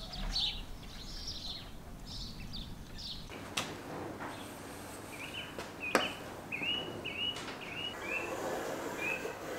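Small birds chirping, followed by two sharp clicks and a run of short, high chirps about twice a second.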